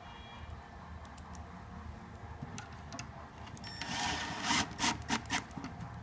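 Hand handling of screws and a cordless drill between drivings, with no motor running: a short rattle about four seconds in, then a few sharp clicks as a screw is fitted onto the drill's bit, over a faint low hum.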